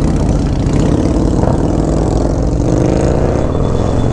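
Harley-Davidson Road Glide's Milwaukee-Eight V-twin through a Khrome Werks 2-into-1 exhaust, pulling away from a stop and accelerating, its pitch rising through the middle of the clip.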